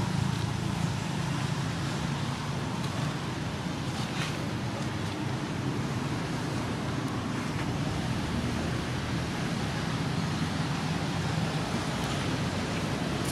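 Steady outdoor background noise: a low rumble with a hiss over it, at an even level throughout.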